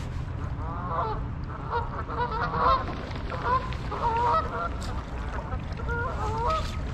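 Geese honking: a run of short, repeated, overlapping honks from about a second in until near the end, over a steady low rumble.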